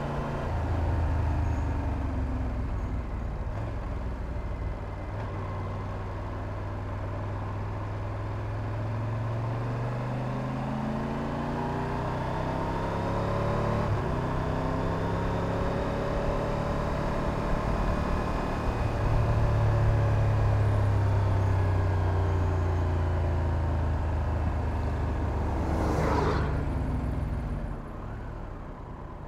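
Triumph Tiger 1200 Rally Pro's inline three-cylinder engine pulling along a twisty road, its note rising and falling slowly as the rider opens and closes the throttle, over wind and road noise. Near the end there is a brief whoosh, then the engine drops quieter.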